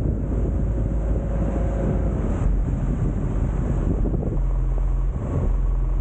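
Strong gusty wind buffeting the microphone, with a steady low hum that comes in about four seconds in.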